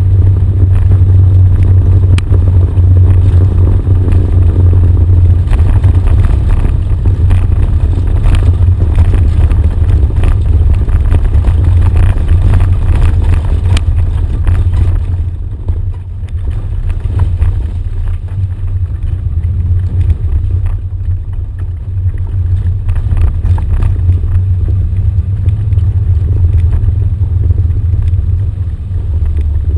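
Off-road vehicle driving a gravel track, heard from its hood: a steady low engine drone with scattered rattles and gravel knocks. It gets somewhat quieter about halfway through.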